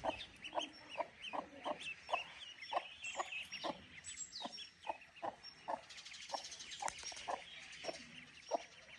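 A hen clucking over and over, two or three clucks a second, while young call ducks peep in distress over the top: the hen is calling anxiously after ducklings that are stranded in the water.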